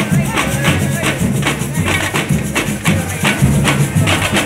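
Samba percussion music: drums and shakers keeping a fast, steady beat of about three to four hits a second.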